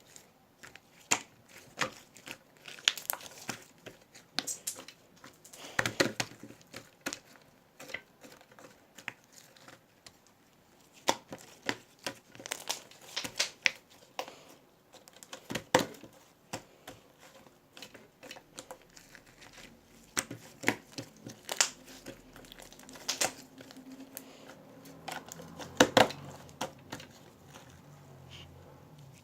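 Irregular crinkling, rustling and clicking handling noises close to the microphone, like something being crumpled or fiddled with.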